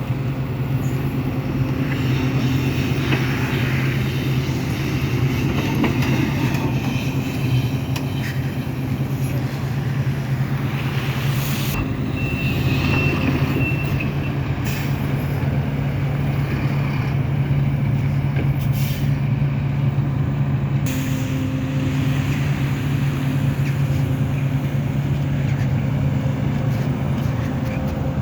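Sumitomo SH300 excavator's diesel engine running steadily with a constant low hum, with a brief high whine about twelve seconds in.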